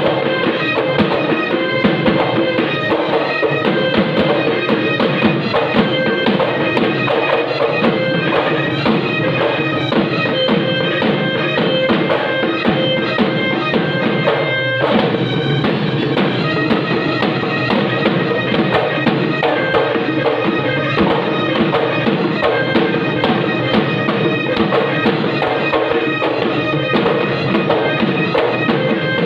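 Live Assamese Bihu music: several dhols beaten in a fast, driving rhythm, with a pepa (buffalo-horn pipe) playing held notes over the drums. The pattern briefly breaks about halfway through, then carries on.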